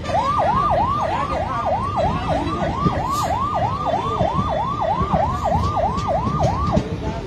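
An electronic emergency siren in a fast yelp, its pitch sweeping up and down about three times a second, stopping about a second before the end, over the low rumble of a moving train.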